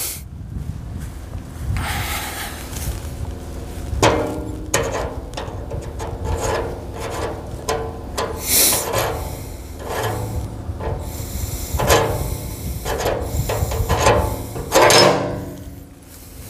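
Irregular rubbing, scraping and knocking as a fuel hose is handled and worked toward the bung hole of a steel drum, over a steady low hum.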